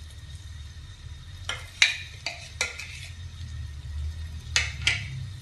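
Spatula scraping and clinking against a nonstick frying pan while a spice paste fries in oil with a light sizzle. Short scrapes come in three pairs, near the middle and near the end.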